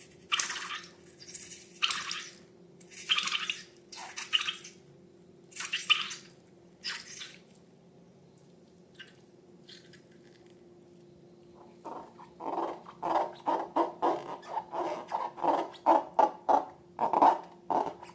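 Slime being handled and worked by hand: wet, sticky bursts about once a second, a short lull, then a fast run of squelches several times a second near the end.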